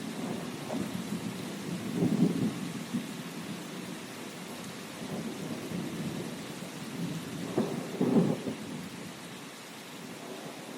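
Steady rain with rolling thunder: low rumbles swell about two seconds in and again near eight seconds, over an even hiss of falling rain that eases off slightly toward the end.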